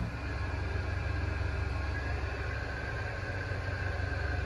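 Steady low machinery hum with a faint, even high whine above it.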